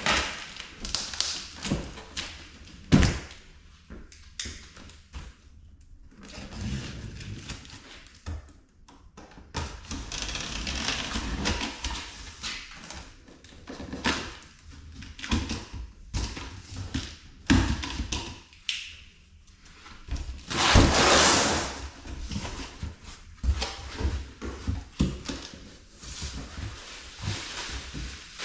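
Objects being handled in a small room: irregular taps, knocks and thuds. About 21 seconds in there is a louder scraping or rustling hiss lasting a second or two.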